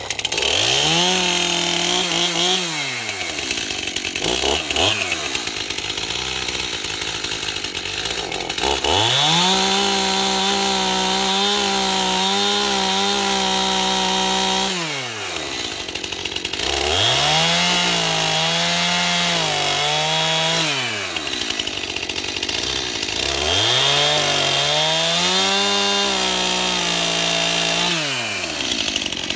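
STIHL MS 271 Farm Boss two-stroke chainsaw revving up to full throttle four times and dropping back toward idle between, as it cuts into a log with its chain still dull before sharpening.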